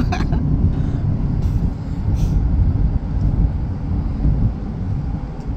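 Road and engine noise inside a moving car's cabin: a steady low rumble of tyres on the highway.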